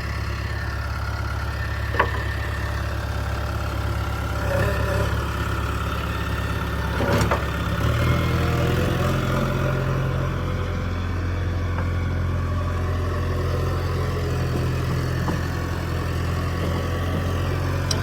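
JCB 3DX backhoe loader's diesel engine running steadily, its note shifting and growing slightly louder about eight seconds in. A sharp knock sounds about two seconds in and another about seven seconds in.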